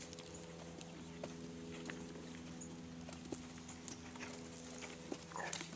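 Hoofbeats of a horse cantering on the sand footing of a riding arena, heard as scattered soft thuds, over a steady low hum.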